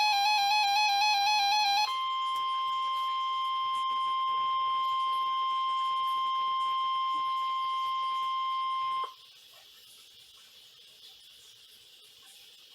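NOAA Weather Radio warning alarm tone from the required weekly test: a steady single high tone, about 1 kHz, that cuts off suddenly about nine seconds in, leaving faint radio hiss. For the first two seconds a warbling electronic alert, stepping between two pitches, sounds over it.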